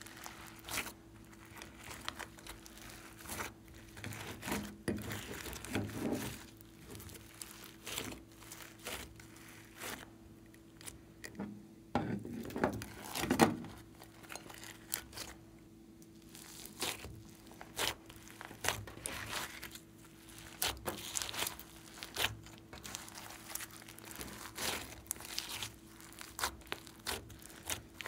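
Slime mixed with foam beads being squished and kneaded by hand, giving irregular sticky crackles and pops, with a louder run of squelches about twelve seconds in.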